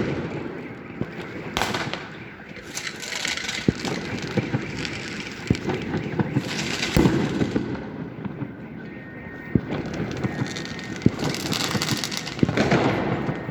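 New Year fireworks and firecrackers going off in many places at once: a steady stream of sharp pops and bangs, with several louder bursts of crackling.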